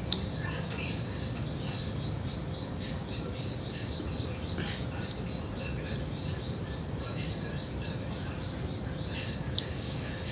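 A bird chirping over and over, about four short high chirps a second, over steady low background noise. A sharp click comes just after the start and another near the end.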